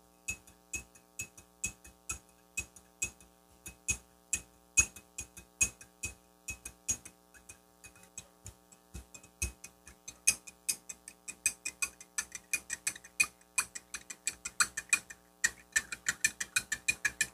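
A spoon clinking against a drinking glass while stirring salt into water, sharp taps a few times a second that come faster in the second half.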